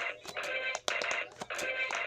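Music with a fast, clicking beat and held electronic-sounding tones.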